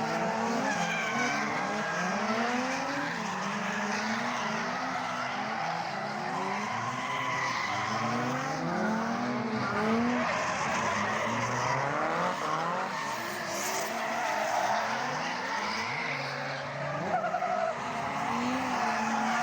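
Drift cars' engines revving up and down in quick, overlapping rises and falls, with tyres skidding and squealing as the cars slide through the corners.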